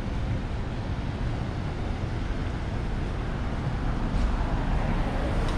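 Steady city street noise: an even rumble of road traffic.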